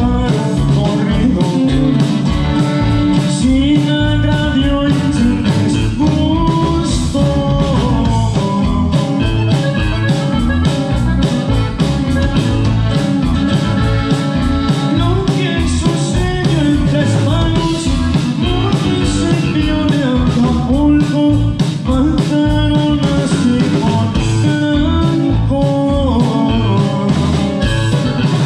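Live norteño band playing at full volume: button accordion carrying the melody over guitar, electric bass and a steady drum beat.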